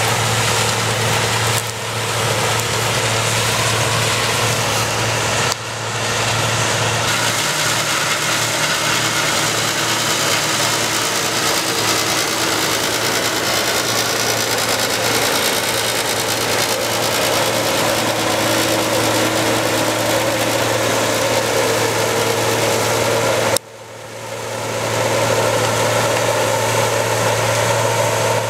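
Claas combine harvester running while cutting grain: a steady engine and threshing drone, dipping briefly three times and swelling back up.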